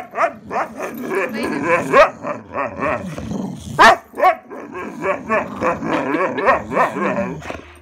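Two dogs roughhousing, growling and barking in a rapid run of short bursts, with the loudest sharp barks about two seconds in and again near four seconds.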